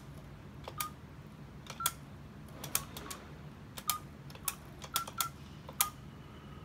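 Stainless-steel payphone keypad being dialled: about ten key presses at an uneven pace, each a sharp click with a short beep, as a phone number is punched in.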